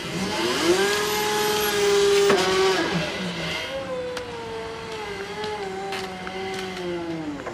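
Forklift motor whining: it rises in pitch and holds steady, cuts off about three seconds in, then whines again with a slowly falling pitch.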